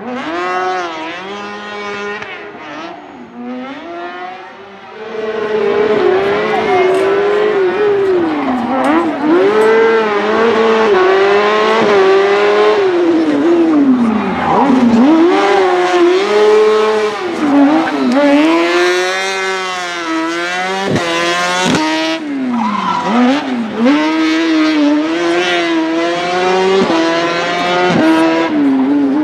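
Ape Car Proto three-wheeler with a swapped-in Honda 600cc engine, revving high and dropping back over and over as it is pushed through a cone slalom. It gets louder about five seconds in.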